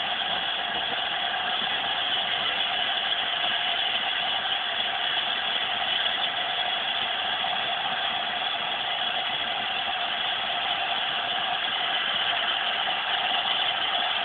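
A stationary LNER A4 Pacific steam locomotive simmering, with an even, unbroken hiss of steam and no chuffs or beats.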